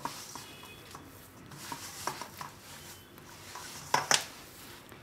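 Hands kneading soft, sticky dough in a stainless steel bowl: soft squishing with scattered light clicks and knocks, the loudest two close together about four seconds in.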